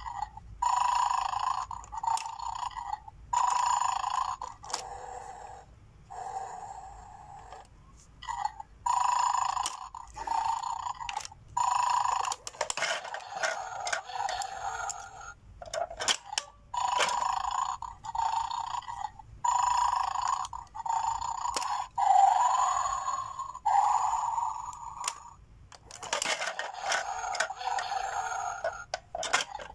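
Battery-operated 'mad dog' bone-stealing toy growling through its small speaker in repeated bursts of about a second, with sharp plastic clicks and knocks in between as the toy is played with.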